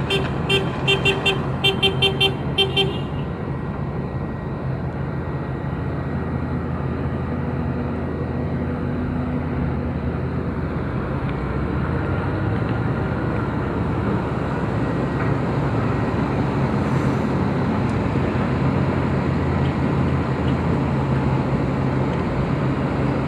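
A vehicle horn gives a quick run of about eight short beeps in the first three seconds, over the steady running of a heavy machine's diesel engine, which grows slightly louder in the second half.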